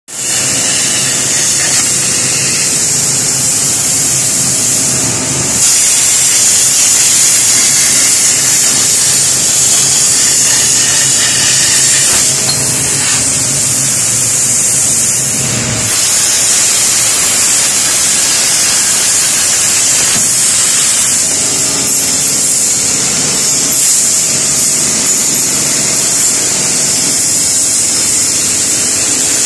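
CNC plasma torch cutting steel plate: a loud, steady high hiss of the arc and its gas jet, with a lower machine hum underneath.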